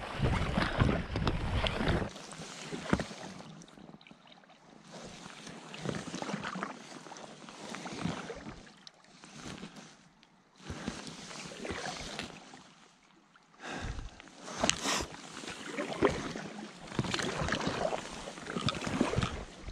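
Water splashing from a canoe being paddled, in uneven swells every couple of seconds.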